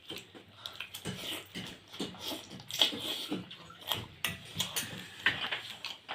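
Close-up eating sounds: wet, irregular chewing and slurping, with sharp smacking clicks, as dudh puli dumplings in sweetened milk are gulped down quickly.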